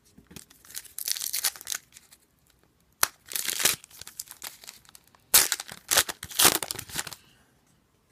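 Trading-card pack wrapper crinkling and tearing as a hockey card pack is ripped open, in three crackly bursts.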